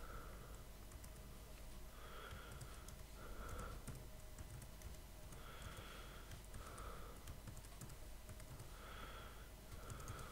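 Faint typing on a computer keyboard, scattered light key clicks, with soft breaths every second or two close to the microphone.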